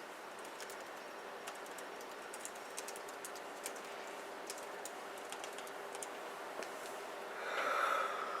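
A woman yawning aloud near the end, a single drawn-out voiced yawn of about a second. Scattered light clicks and a faint steady hum sound before it.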